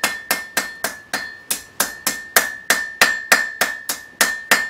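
Blacksmith's hammer striking a hot iron rod on an anvil in a steady rhythm, about three blows a second, each blow ringing at the same high note. The rod is rolled between blows to round a squared taper back out.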